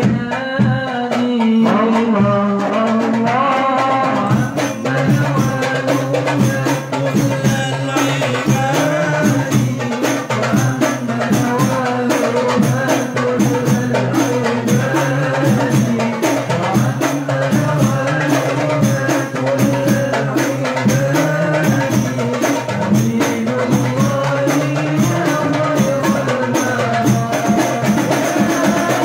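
Hadroh ensemble: frame drums beat a steady, busy rhythm with jingling percussion, while voices sing Islamic devotional verses over them.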